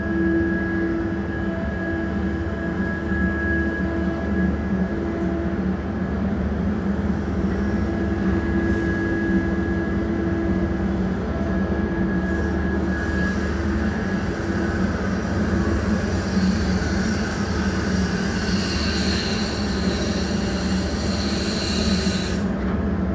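Mantsinen 95 hydraulic material handler crane running as it swings its clamshell grab: a steady machine hum with a high whine, and a hiss that builds up over the second half and cuts off near the end.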